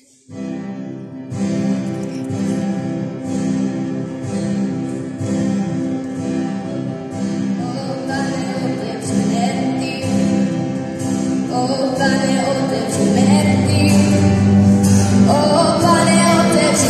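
Acoustic guitar strummed alone at first, then a woman begins singing a religious song over it about halfway in, her voice becoming stronger near the end.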